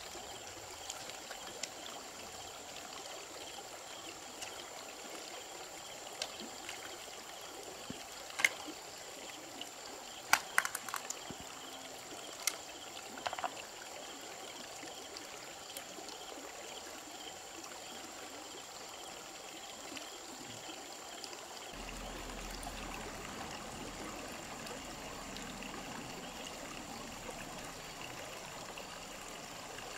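Shallow river water flowing and trickling over stones, with a faint steady high tone above it. A handful of sharp clicks and knocks of stones being handled in the shallows fall in the middle.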